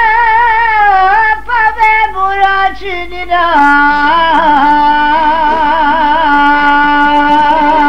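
Albanian folk singing: a voice holding long notes with wide vibrato. The melody steps down about a second in and settles on a lower held note from about three and a half seconds in.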